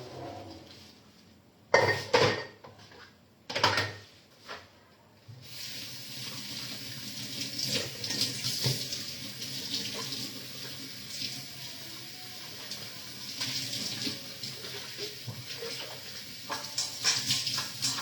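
A few knocks of dishes, then a kitchen tap runs water into the sink steadily from about five seconds in, with dishes clinking now and then under the stream: dishwashing at the sink.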